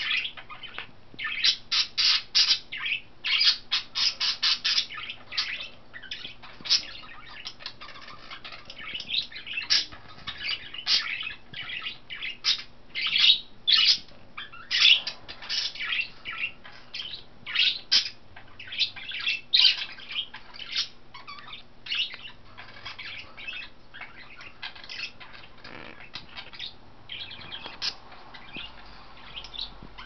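Several pet budgerigars chirping and squawking: a busy run of short, high calls, thinning out toward the end.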